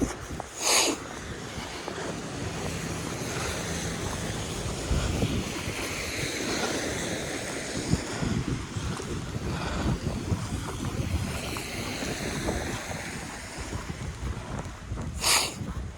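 Snowstorm wind rushing and buffeting the microphone, with two short, loud gusts, one about a second in and one near the end.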